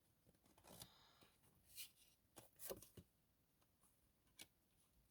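Near silence broken by a few faint soft rustles and light taps of tarot cards being handled.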